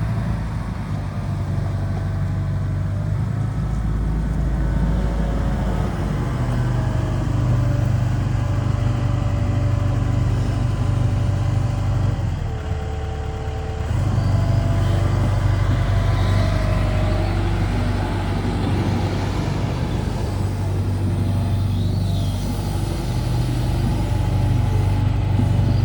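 Diesel engine of a Hitachi ZX170W-5B wheeled excavator running steadily, its note swelling and easing several times, with a brief lighter spell about halfway, and faint higher tones sliding in pitch over it.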